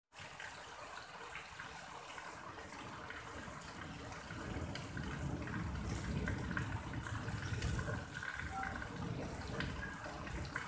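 Steady rain falling, a constant rush of water with many small drips and ticks. It gets a little louder with a deeper rumble from about four and a half seconds in.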